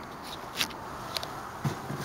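A few scattered light clicks and taps from hand work with tools and parts.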